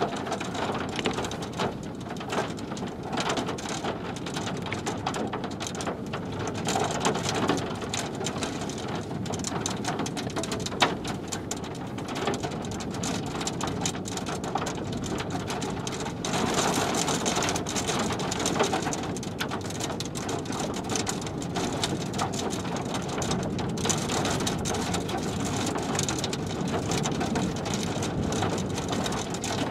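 Rain falling steadily, a dense patter of many separate drop hits, with one sharper tap about eleven seconds in.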